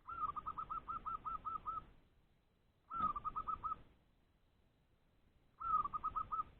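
Zebra dove cooing in its rapid staccato 'ngorok' call, the challenge call a caged decoy bird gives to draw out rival wild doves. Three calls, each a longer opening note followed by a quick run of short clipped coos; the first is the longest, with about nine notes, and the other two are shorter.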